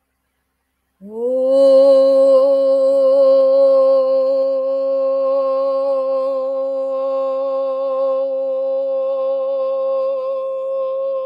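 A woman's voice toning one long held vowel. It slides up into pitch about a second in, then holds a single steady note.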